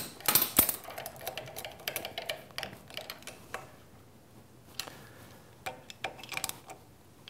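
Scattered light metallic clicks and ticks of a nut driver and hex key running small serrated flange nuts onto studs to fasten a servo motor to its mounting plate. The clicks are busiest in the first few seconds, thin out, and pick up again near the end.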